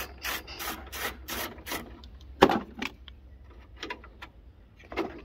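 Ratchet wrench undoing a 10 mm bolt under a car's bonnet: a run of quick rasping ratchet strokes, about three a second for the first two seconds, then scattered knocks as parts are handled, the loudest about two and a half seconds in.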